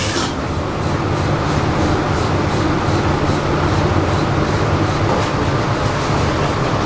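Steady loud low rumble of kitchen background noise. Over it runs a faint series of short hissing strokes, about three a second, as cleaner is sprayed onto the steel stove top and wiped with a cloth.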